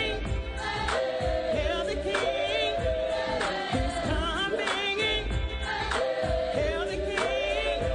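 Gospel choir singing together, with a solo voice wavering above the held choral notes, over a steady beat.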